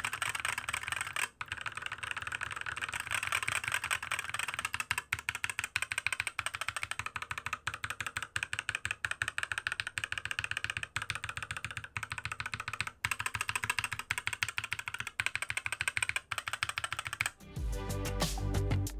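Fast typing on a mechanical keyboard with Gateron optical yellow linear switches: a dense, steady run of keystroke clacks. Near the end the typing gives way to music.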